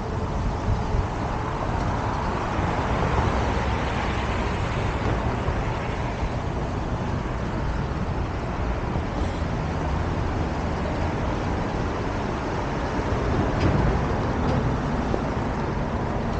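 Road traffic on a city street: a steady rush of passing cars, swelling as vehicles go by about three seconds in and again after about thirteen seconds.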